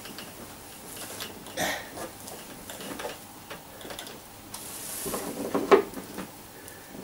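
Plastic wrapping rustling and crinkling as it is worked and pulled off a hard banjo case, with the loudest rustle near the end as the wrap comes free.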